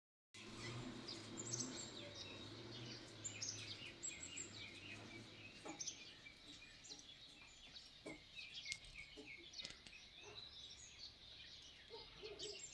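Several small birds chirping and twittering together, many short overlapping calls and trills, faint over a low steady background hum.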